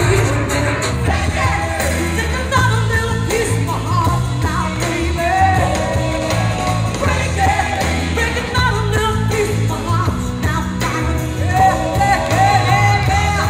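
A female rock singer singing live into a microphone over loud rock music with a steady bass beat, amplified through PA speakers.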